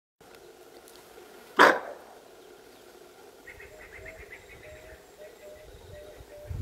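A bushbuck's alarm bark: a single loud, harsh bark about a second and a half in, falling in pitch. It is the warning call a bushbuck gives on sensing a predator.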